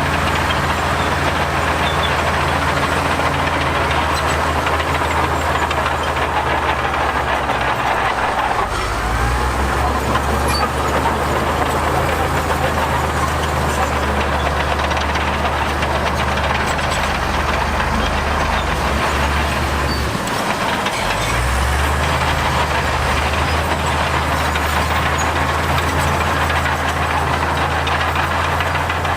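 Heavy diesel engine of a construction machine running steadily under work. Its note shifts about nine seconds in, and dips briefly about twenty seconds in before picking up again.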